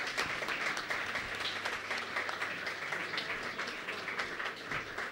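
Audience applauding: many hands clapping, easing off slightly toward the end.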